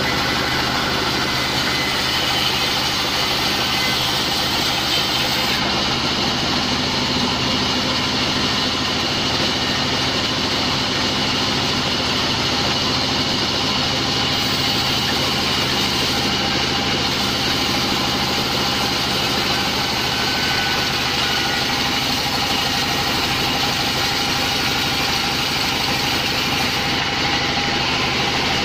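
Large vertical band saw running steadily with its wheels and drive turning, while a log is fed through the blade and sawn lengthwise.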